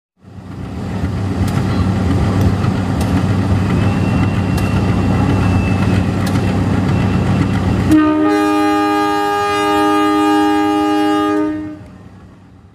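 CC 201 diesel-electric locomotive passing close by, its engine and wheels giving a loud steady low drone with a few sharp clicks. About eight seconds in it sounds its multi-tone horn for about three and a half seconds as a greeting from the crew, then the sound fades out.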